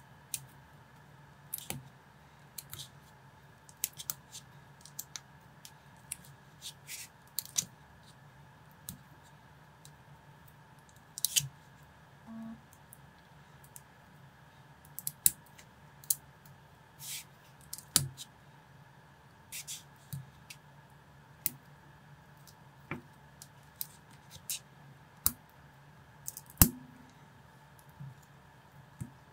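Small Lego-compatible plastic bricks being handled and snapped together by hand: irregular sharp clicks and clacks, some in quick pairs, the loudest a little before the end. A faint steady hum sits underneath.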